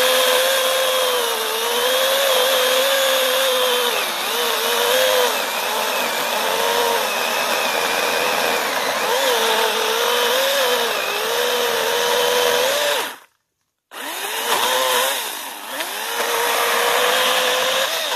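Battery-powered electric chainsaw cutting through a rotted dead log, its motor whine dipping in pitch and recovering as the chain loads in the cut. It stops abruptly about 13 seconds in, starts again half a second later, and stops at the very end.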